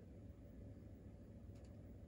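Near silence: room tone with a low steady hum, and two faint ticks about one and a half seconds in.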